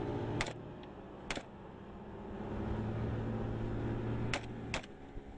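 Motorboat engine running, with four sharp cracks over it: two near the start about a second apart and two close together near the end.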